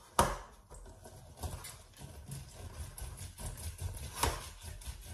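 Lemon halves pressed and twisted by hand on a plastic citrus reamer: irregular rubbing and small clicks, with a sharp knock just after the start and another about four seconds in.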